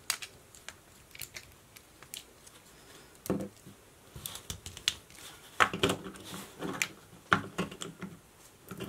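Hard plastic joints of a Beast Wars Tripredacus combiner toy clicking as it is bent and swivelled by hand: a string of small sharp clicks, sparse at first, then busier and louder from about a third of the way in.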